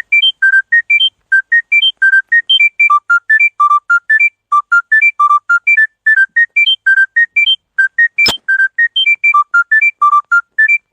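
Smartphone ringtone: a quick melody of short, high, pure notes, about four or five a second, stepping up and down in repeating phrases. A single sharp click comes a little after eight seconds in.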